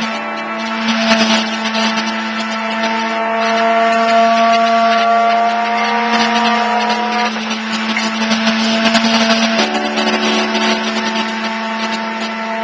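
Electronic drone music: one steady low tone held under layered sustained tones that shift pitch in steps, with a hissing noise layer over them.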